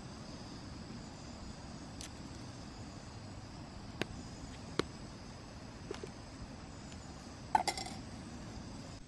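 A few scattered sharp clicks, then a short cluster of metallic clinks with a brief ring about three quarters of the way through, over a faint steady hiss.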